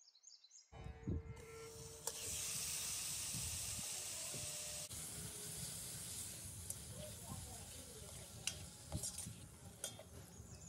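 Beef cubes sizzling in a hot nonstick pot, louder for the first few seconds and then settling to a steadier sizzle, with a metal spoon clicking and scraping against the pot as the meat is stirred.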